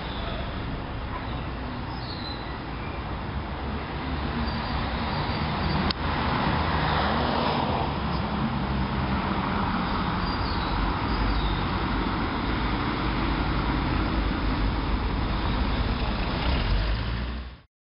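Street traffic noise: a steady rumble of road vehicles, swelling as one passes about six to ten seconds in, with a single sharp click about six seconds in. The sound cuts off abruptly near the end.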